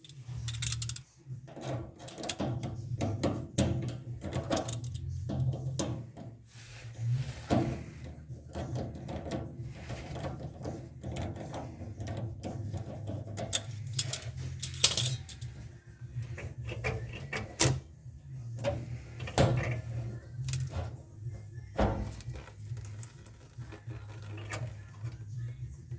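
Hand tools clinking, clicking and knocking on metal at an irregular pace, over a low steady hum.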